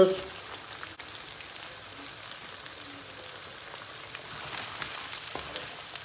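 Chicken pieces frying in plenty of hot oil in a pan on high heat, a steady sizzle with freshly added sliced onion. Near the end a wooden spoon stirs through the pan with a few light scrapes and taps.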